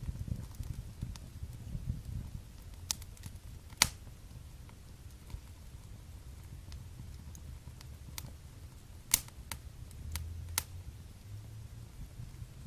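Wood fire in a fireplace crackling over a low rumble of flames, with scattered small snaps and a few sharp pops, the loudest about four and nine seconds in.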